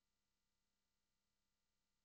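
Near silence: a very faint steady hiss of recording noise floor.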